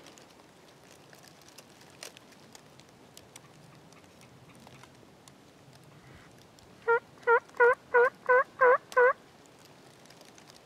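Turkey yelping: seven even yelps in quick succession, about three a second, in a hen's cadence, loud over the quiet woods.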